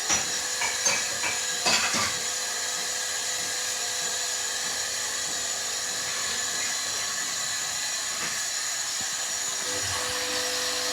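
Hoover washing machine drum spinning a load of bedding: a steady motor whine over a hiss, with a few knocks in the first two seconds.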